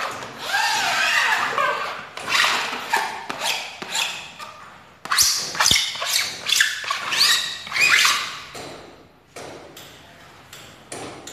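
Hand glue spreader scraping adhesive across vinyl floor planks in repeated strokes, some with a short rising squeak.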